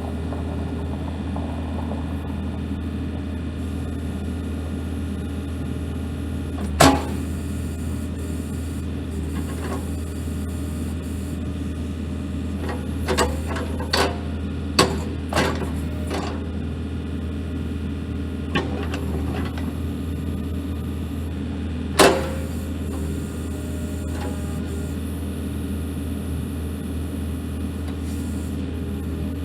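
Diesel engine of a New Holland E55BX mini excavator idling steadily, with a few short sharp knocks, the loudest about 7 seconds in and about 22 seconds in.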